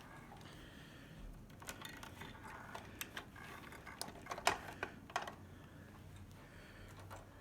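Faint scattered clicks and light knocks from things being handled, with a few sharper clicks through the middle. No motor is running.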